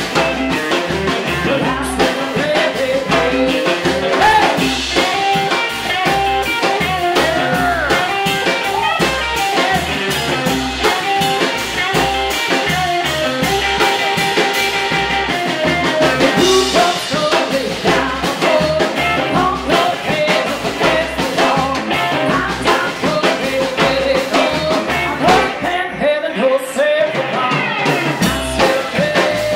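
A band playing live: a woman singing over electric guitar, upright bass and a drum kit, in a blues-tinged rock and roll style. The drums drop out for about two seconds near the end.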